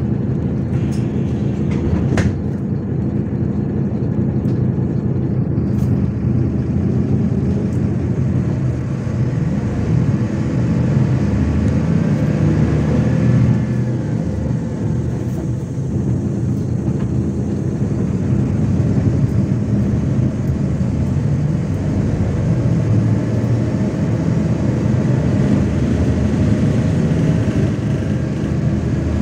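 MAZ-103 city bus driving, heard from inside the passenger cabin: a steady engine and drivetrain hum whose pitch drifts up and down with speed, with a sharp click about two seconds in.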